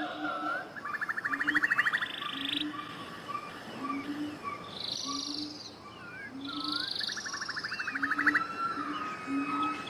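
Nature sound-effect ambience: birds chirping with gliding calls and two rapid trills, over a low short croak repeating roughly once a second.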